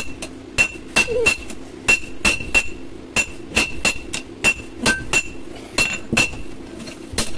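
Hand hammer forging a red-hot steel blade on a railway-rail anvil. The blows come at a steady pace of about three a second, with a short break early on, and each one rings out with a clear metallic ring.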